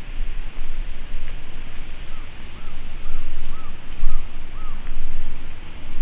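Gusty low rumble of wind on the microphone. About two seconds in, a bird calls six times in a row, short arched notes about half a second apart.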